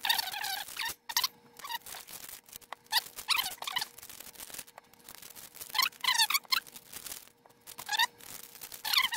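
Fast-forwarded sound of baseball card pack wrappers being torn open and crinkled, so the rustling comes quick and the sounds are pushed up into short, high squeaky chirps.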